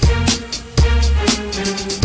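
Background music with a heavy bass beat and drums, in a hip hop style.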